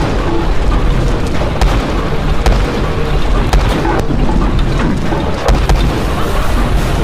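Heavy road roller running, a loud, continuous low rumble as it rolls over a row of inner tubes, with several sharp cracks along the way.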